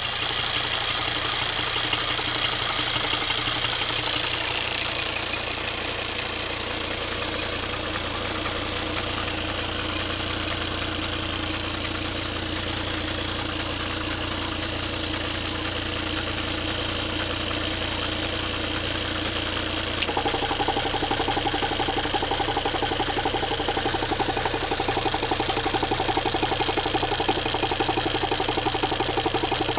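Volvo D5 five-cylinder turbo-diesel idling steadily. A high hiss sits over it at first and fades after about five seconds. About twenty seconds in there is a sharp click, after which the engine sound changes and gets a little louder.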